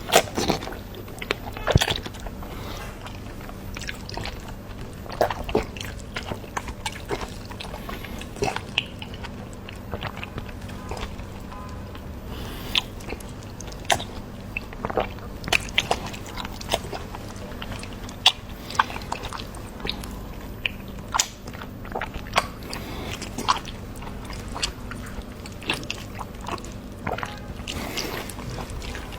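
A person biting and chewing pork fat close to the microphone: irregular wet mouth clicks and smacks, loudest in the first couple of seconds, over a faint steady hum.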